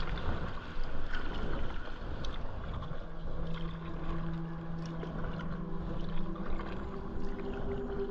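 Paddle strokes on a shallow river from a packraft: the blades of a double-bladed Aqua Bound paddle dip and splash in turn, with water rushing and rippling along the inflatable hull, and a faint steady low hum underneath.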